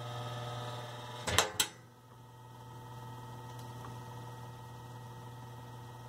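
Freshly regreased motor of a vintage McGraw Edison New Home box fan running without its blades, a steady electrical hum. A couple of sharp clicks about a second and a half in.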